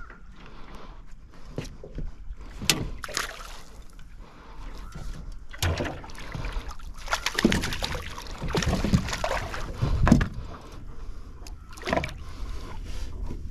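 Water sloshing and splashing around a small fishing boat, with scattered knocks of gear against the hull. The splashing is loudest and busiest through the middle of the stretch.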